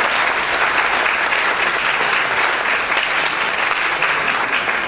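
Audience applauding, a steady, sustained round of clapping.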